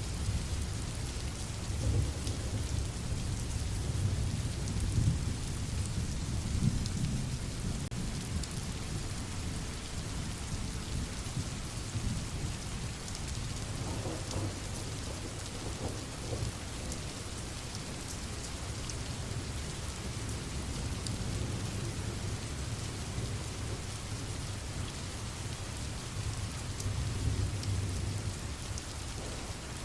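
Steady rain falling, with low rolling thunder that swells in the first several seconds and again near the end.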